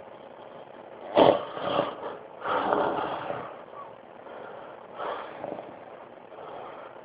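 A man snoring: four rough snores a second or two apart, the first, about a second in, the loudest and the last the softest.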